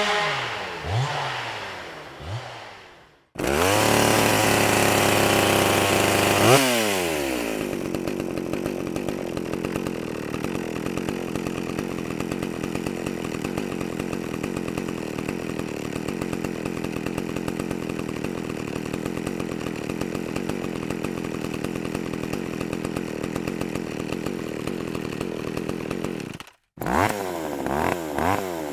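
Several chainsaw recordings cut together. A chainsaw revs down with a couple of short blips. After a brief break another is held at high revs for about three seconds, drops back, and runs steadily at a lower speed for about twenty seconds. Near the end a third revs up and down.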